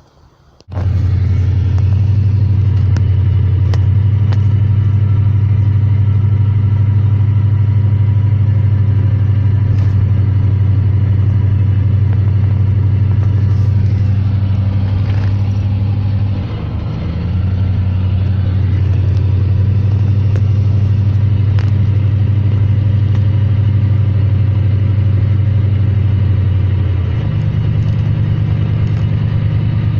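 1998 Dodge Ram 1500's engine idling steadily. It comes in suddenly about a second in, dips briefly past the middle and shifts slightly in pitch near the end.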